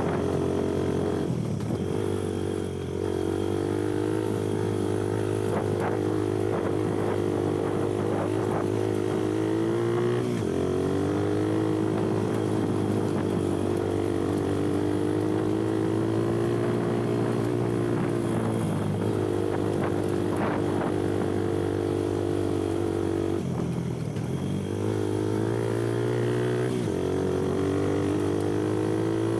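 Kuba Black Cat dirt bike's engine running under way, its pitch dropping and climbing again several times as the throttle is eased and reopened, with the deepest dip near the end.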